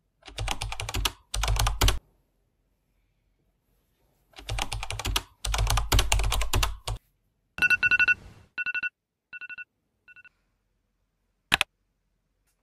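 Keyboard typing sound effect in two rapid clattering bursts, the second longer. It is followed by an electronic alarm beeping in short runs that get shorter and fainter, and a single sharp click near the end.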